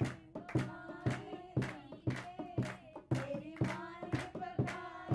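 Voices singing a festive song to steady rhythmic hand clapping, about two claps a second.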